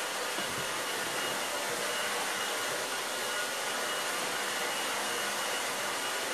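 Handheld hot-air blower, a hair-dryer type, running steadily as it is swept over a wooden table top. It gives an even blowing rush with a faint high whine and is drying the surface finish.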